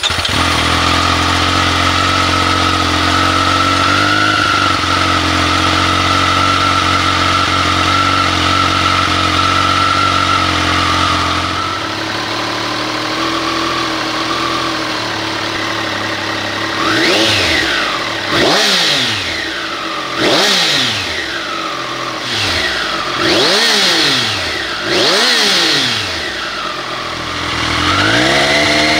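Triumph Street Triple RS 765 cc three-cylinder engine on its stock Euro 5 exhaust, just started and idling steadily; about twelve seconds in the idle drops lower. From about seventeen seconds the throttle is blipped five times in quick, sharp revs, and near the end the revs rise and hold.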